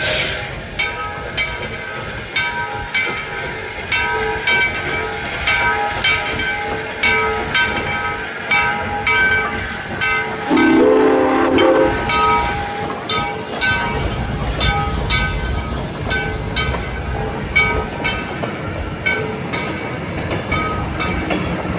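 Train at the railroad with a steady run of ringing, clanging strikes. A locomotive horn sounds one chord-like blast of just over a second about halfway through.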